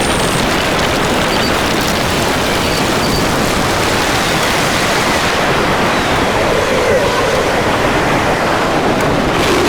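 Harsh noise music: a loud, steady wall of dense static-like noise.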